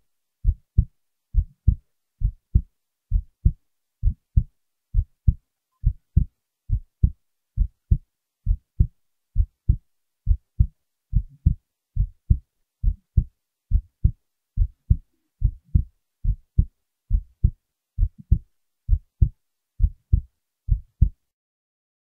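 Heartbeat: steady, deep paired thumps (lub-dub), a little over one beat a second.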